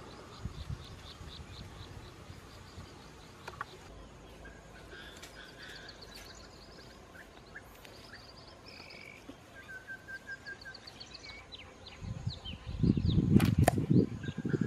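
Several wild birds chirping and calling in short repeated notes over a quiet outdoor background. About twelve seconds in, loud, close rustling and knocking sets in, with two sharp clicks about a quarter second apart just before the end.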